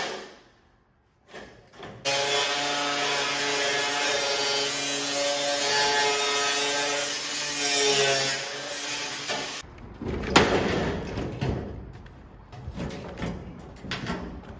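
Angle grinder cutting through a weld on sheet steel: a steady motor whine with hiss that starts about two seconds in, sags slightly in pitch under load and cuts off sharply. A string of metal knocks and rattles follows.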